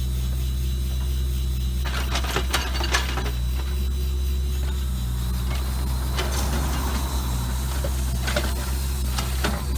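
An engine running steadily with a low drone, with bouts of scraping and clattering starting about two seconds in, typical of trench digging for a water line.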